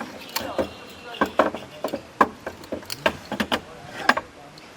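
An irregular series of sharp clicks, knocks and clatters, about a dozen in a few seconds, some with a brief ring: objects being handled and set down.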